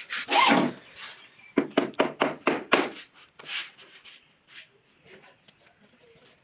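Hand tool rubbing or scraping on wood in short strokes, a quick run of about four strokes a second after one longer stroke, then trailing off.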